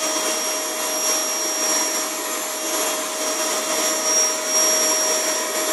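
Vacuum cleaner running steadily: a constant motor whine over an even rush of air.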